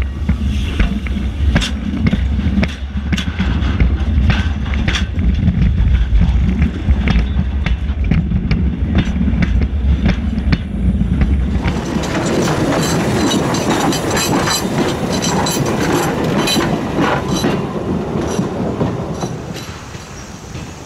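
Railroad car wheels rolling over the rails close overhead: a heavy low rumble with sharp clicks as the wheels cross the rail joints. About twelve seconds in it changes to a brighter rattling clatter, which fades near the end.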